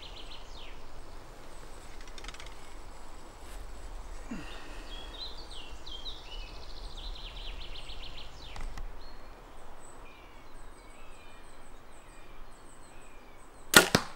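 Songbirds chirping and trilling in a quiet forest. Near the end comes one sharp, loud double crack: a compound bow is shot and the arrow strikes the foam 3D fox target in the nose.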